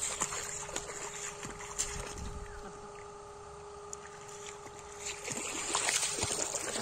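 Feet and a wicker basket splashing and sloshing in shallow muddy water, strongest at the start and again about five to six and a half seconds in. Under it runs the steady hum of a water pump draining the pond.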